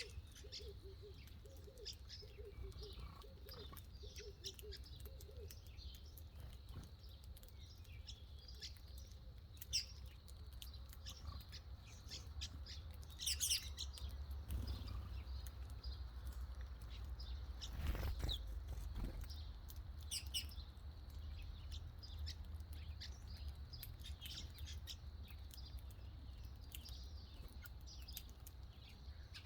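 Small birds chirping, with short high chirps scattered throughout and a few louder sharp notes near the middle, over a low steady rumble.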